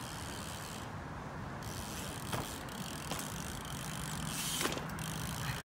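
BMX bike rolling over asphalt: a steady tyre-and-air rush with a few sharp clicks and knocks from the bike.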